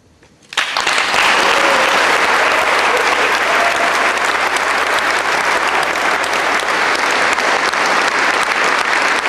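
Wedding guests applauding. The clapping breaks out suddenly about half a second in and carries on steadily.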